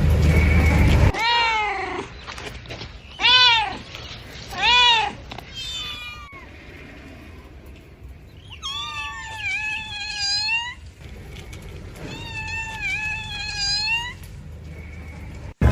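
A cat meowing repeatedly: four short meows that rise and fall in pitch, then two longer, quieter wavering calls. A low rumble fills the first second.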